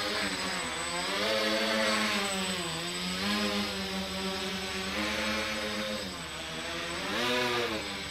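Small quadcopter's electric motors and propellers buzzing in flight, the pitch swooping up and down several times as the throttle changes.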